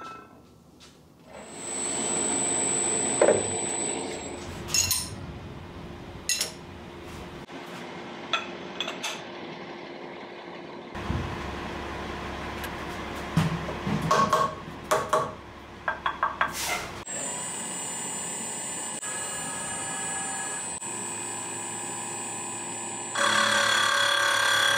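An aluminium plate is set down with a sharp clink. Then come workshop sounds at a CNC mill: a steady machine hum with a thin high tone, scattered knocks and clicks, and a ratchet wrench clicking in quick runs as the vise is tightened on the plate. Near the end a louder steady whine with several tones comes in.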